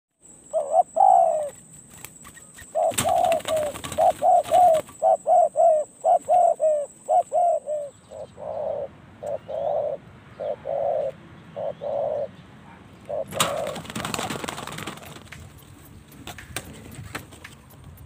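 Spotted dove cooing repeatedly: a run of quick short coos, then slower, longer coos, with a last coo about thirteen seconds in.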